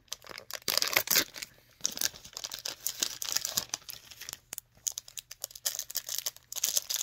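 A printed plastic blind-bag toy package crinkling and tearing as it is pulled open by hand. It goes in irregular crackles, with a short lull about four and a half seconds in.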